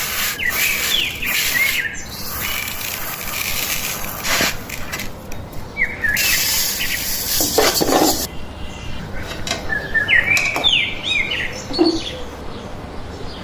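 Small birds chirping in short rising and falling notes, in bursts near the start, about six seconds in and around ten to eleven seconds. Under the first part runs a steady high hiss that cuts off suddenly about eight seconds in, with a few scattered knocks.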